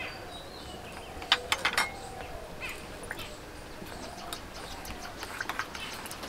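Metal spoon and utensils clinking against small steel bowls: a few sharp clinks about a second and a half in, then lighter taps near the end as egg filling is stirred in a bowl. Under them a faint steady sizzle of a paratha frying in oil in a wok, with faint animal calls in the background.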